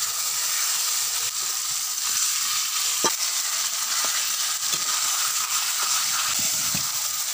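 Marinated mutton sizzling steadily in hot oil in a metal wok, stirred with a metal spatula that scrapes and clinks against the pan, most sharply about three seconds in.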